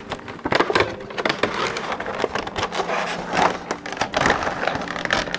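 Cardboard box and plastic packaging being opened and handled by hand: a busy, irregular run of rustling, scraping and sharp clicks.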